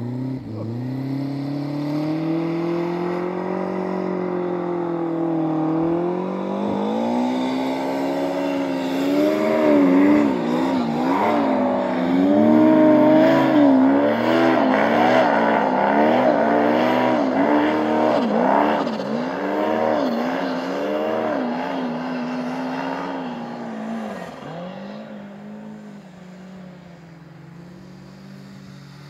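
Turbocharged Yamaha Apex snowmobile engine revving hard on a steep hill climb, its pitch rising and falling as the throttle is worked and the track digs in. The sound is loudest in the middle of the climb and fades near the end as the sled goes over the ridge.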